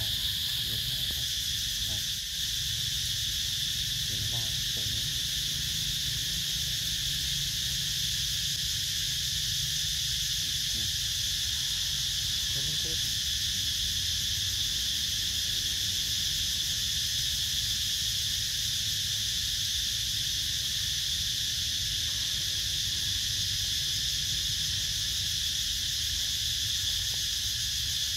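Steady insect chorus: a continuous high buzzing drone that never breaks or changes.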